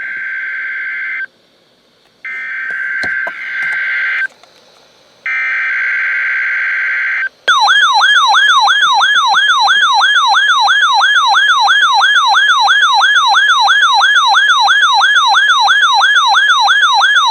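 NOAA Weather Radio weekly test signals: three bursts of SAME digital header tones, each one to two seconds long, with faint radio static in the short gaps between. After that comes a loud warbling electronic alert tone that sweeps up and down about three times a second and lasts about ten seconds.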